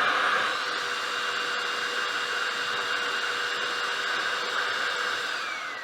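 Hoover FloorMate Deluxe hard floor cleaner's suction motor running with a steady whine, then switched off near the end and starting to wind down, its pitch falling.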